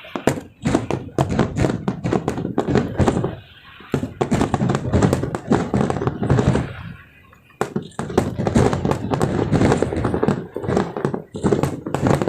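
Aerial fireworks going off in rapid clusters of bangs and crackles, with two short lulls.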